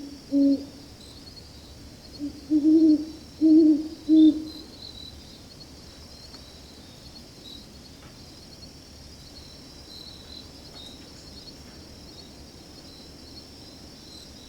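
Great horned owl hooting: one deep hoot just after the start, then a run of four deep hoots from about two to four seconds in. A faint steady high insect trill runs behind it throughout.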